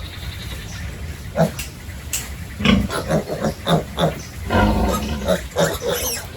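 Pigs grunting and squealing in short, separate calls, sparse at first and coming thick and fast from a little before halfway through.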